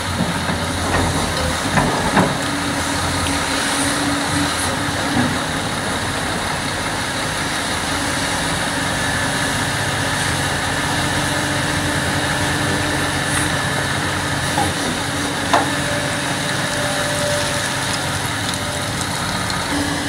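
Large Hitachi hydraulic excavator's diesel engine running steadily as it digs, with a short knock about two seconds in and another near fifteen seconds.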